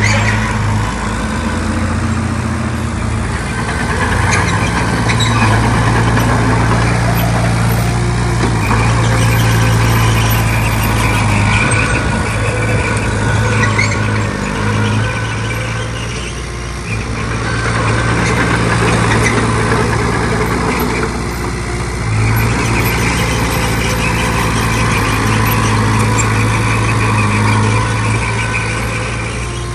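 Heavy diesel engine of an earthmoving machine running steadily under load, easing off briefly twice and picking up again.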